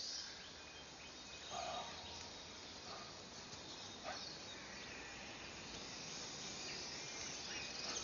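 Steady jungle ambience, a hiss of insects, with a couple of faint short calls about one and a half seconds in and again about four seconds in.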